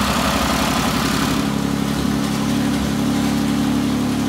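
Newly swapped-in 3.2-liter Pentastar V6 of a Ram ProMaster running right after its first start, the revs wavering at first and settling into a steady idle about a second and a half in.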